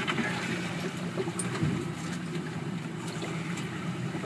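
Boat engine idling with a steady low hum, over the wash of sea water against the hull.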